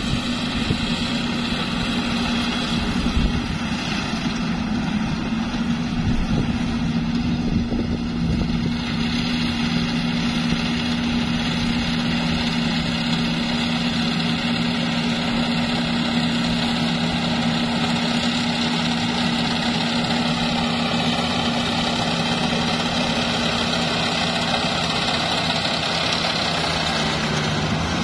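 Yanmar combine harvester running steadily as it harvests flattened, lodged rice: a continuous diesel engine drone with a steady hum, a second lower hum joining about a third of the way in.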